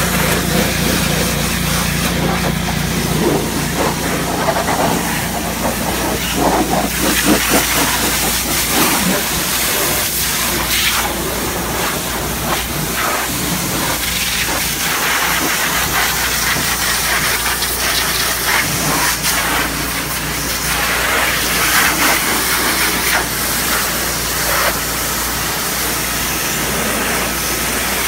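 High-pressure washer wand blasting water onto a semi-truck tractor's cab and drive tyres: a loud, steady hiss of the jet hitting metal and rubber, over a steady low hum.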